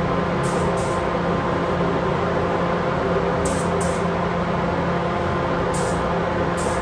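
Paint booth ventilation running steadily with a constant hum, broken by a few short, sharp hisses of a gravity-feed spray gun as paint is sprayed onto a fork tube.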